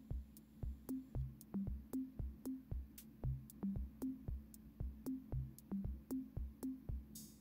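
Background electronic music with a steady drum-machine beat and a repeating synth bass line.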